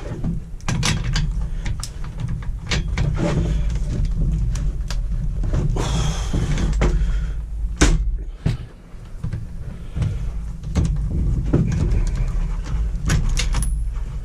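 Clicks, knocks and metallic clinks of hand tools and parts being handled while the spark plug on a petrol multi-tool is changed, with a longer scraping rasp about six seconds in and a low handling rumble underneath.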